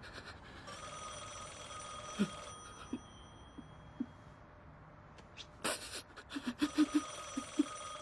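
A telephone ringing: two rings of a steady electronic tone, each about two seconds long, the second starting about six seconds in. A run of short low sounds comes in the second half.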